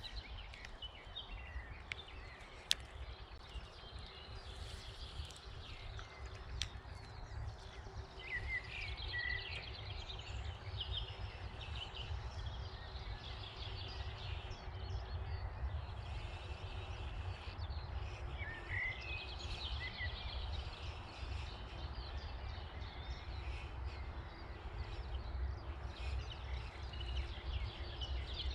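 Wind rumbling on the microphone, with small birds singing short warbling and chirping phrases now and then.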